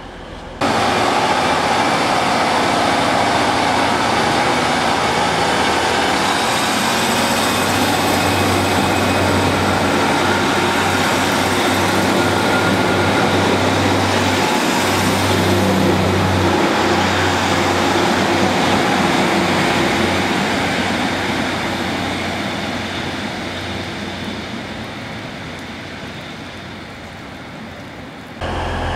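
A train running past the platform: a loud, steady rumble and rush of wheels and engine that begins abruptly, holds for about twenty seconds, then fades as the train draws away.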